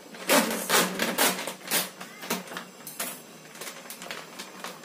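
Plastic bag of frozen fish crinkling and rustling as hands pull it open, a quick irregular run of sharp crackles, loudest in the first two seconds and fainter after.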